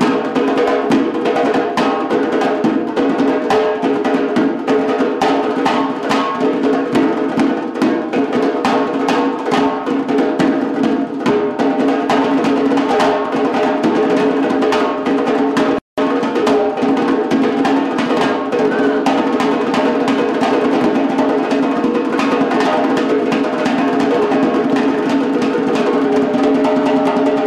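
Fast ensemble drumming on two upright drums and a doira frame drum, dense rapid strikes over steady held tones underneath. The sound drops out for a split second about halfway through.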